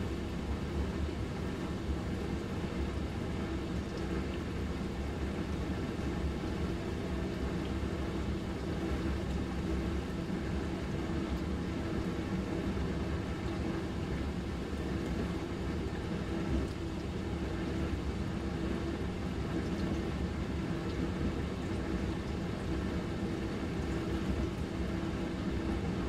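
Dishwasher running: a steady motor hum under an even rushing noise, with no change in level.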